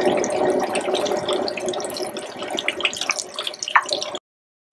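Coxinhas deep-frying in hot oil in a pan: a steady sizzle full of small crackles, easing a little before it stops abruptly near the end.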